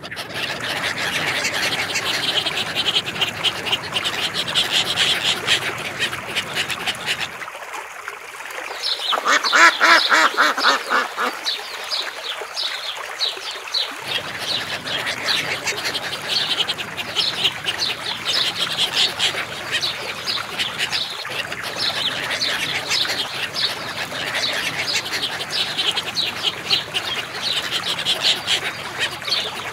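Mallard ducks quacking, many calls in quick succession, with a louder run of quacks about eight to twelve seconds in.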